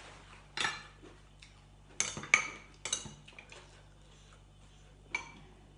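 A metal spoon clinking against a glass jar of chili dipping sauce: several sharp clinks, a loud cluster about two seconds in and one more near the end.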